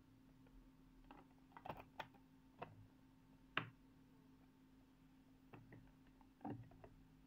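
Light, irregular clicks and taps of fingers handling a small clear acrylic enclosure, the sharpest about three and a half seconds in, over a faint steady hum.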